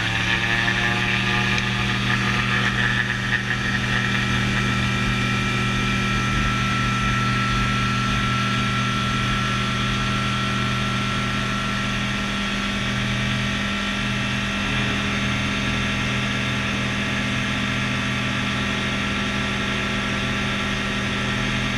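Rotax 912 iS Sport four-cylinder engine and propeller of an F6 Hydran, heard from inside the cockpit, running steadily at high power during the takeoff roll, holding an even pitch throughout.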